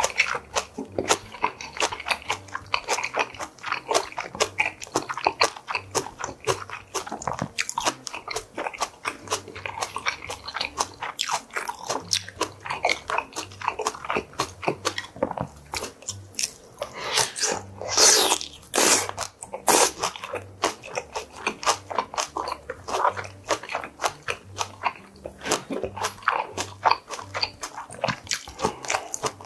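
Close-up chewing and crunching of fresh kimchi and boiled pork, with many wet mouth clicks. A louder stretch of crunching a little past the middle.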